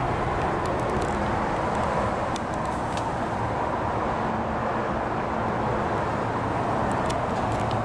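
Steady rush and low hum of motor traffic from a nearby highway, with a few faint clicks.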